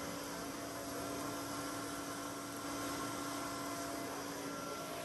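Steam locomotive built by VEB Lokomotivbau Karl Marx Babelsberg standing at rest, giving off a steady hiss with a faint low hum.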